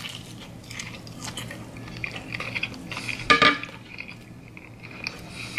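A ceramic plate being handled with small clinks and scrapes while a bite of chicken tender is chewed. A sharper, louder clink comes a little past halfway, over a low steady hum.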